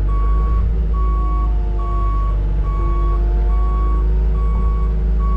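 Backup alarm beeping steadily, a single high beep a little under once a second, over a heavy machine's engine running: the machine is reversing.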